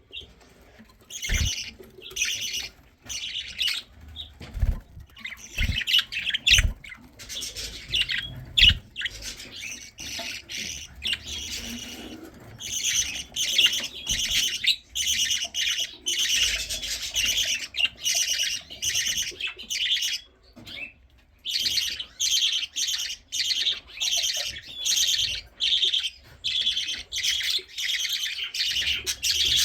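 Baby budgerigar chicks begging for food: a long run of short, raspy chirps, about two a second, coming thick and continuous in the second half, with a few low thumps in the first several seconds.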